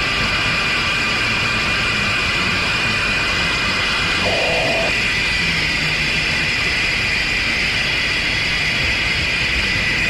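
Harsh noise improvisation: a dense, unbroken wall of hiss and churning rumble, with a short mid-pitched tone about four seconds in.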